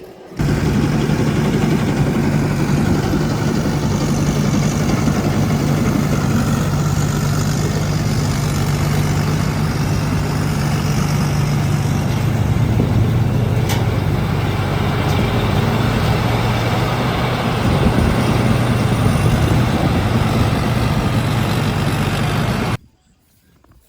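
Rice combine harvester's engine running steadily under load. It cuts in suddenly about half a second in and cuts off suddenly near the end.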